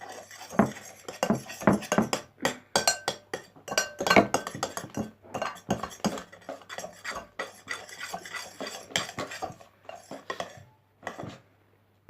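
A utensil stirring and scraping around a bowl of glue slime as borax water is worked in, with fast, irregular clinks and scrapes against the bowl. It stops near the end.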